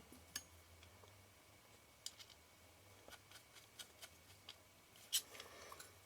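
Faint, scattered small clicks and light taps of metal lens parts and a small screwdriver being handled while a camera lens is reassembled, with one slightly louder tap about five seconds in.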